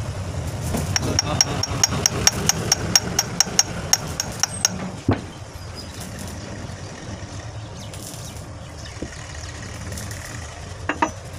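Quick light hammer taps on metal, about four a second with a bright ringing tone, for a few seconds. Under them runs a low engine rumble that drops away about five seconds in.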